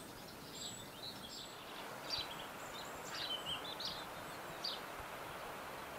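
Garden birdsong: small birds chirping in short, high notes scattered through, over a steady background hiss.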